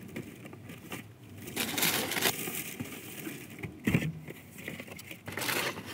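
Cardboard shoebox and its packing paper being handled, with rustling and crinkling in several bursts and a bump about four seconds in.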